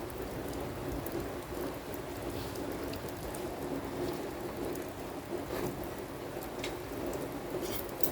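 Steady rainfall falling on surfaces, with a few sharp taps of drops in the second half.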